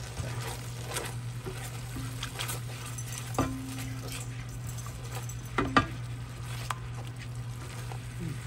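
Spatula stirring and scraping pan gravy in a stone-coated roasting pan while the gravy bubbles on the stove, with a couple of sharper knocks against the pan, one midway and one about two-thirds through. A steady low hum runs underneath.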